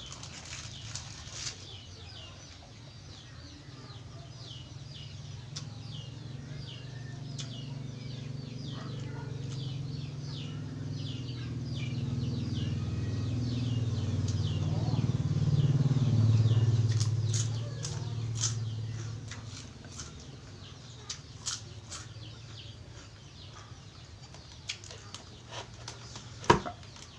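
Close chewing and crunching of fried pork rinds, with sharp crackles in the second half, over birds chirping in the background. A low rumble swells and fades around the middle. A single sharp knock comes near the end.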